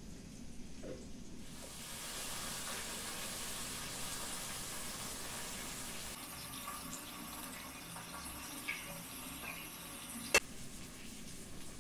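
A steady hiss from the pot on the gas burner comes in suddenly about a second and a half in and eases off partway through. Near the end there are a few light clicks, then one sharp clink of the ladle against the pot.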